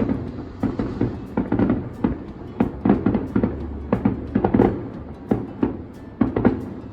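Fireworks going off in quick, irregular succession, many sharp bangs and crackles, with music playing alongside.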